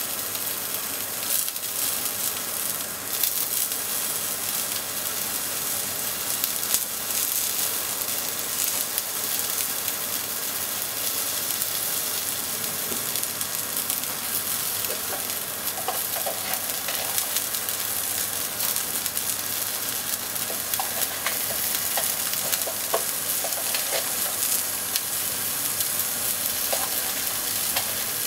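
Strips of scallop mantle (himo) sizzling in oil in a frying pan: a steady frying hiss with scattered small crackles.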